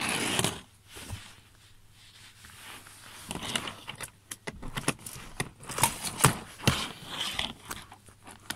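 Handling noise of small plastic toy trains: a brief rustle at the start, then a run of light clicks and scrapes as the toys are picked up and set down on the play mat.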